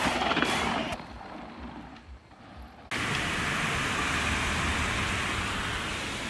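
A steady rushing noise, like rain or wind on a phone's microphone, starts suddenly about three seconds in after a quieter stretch.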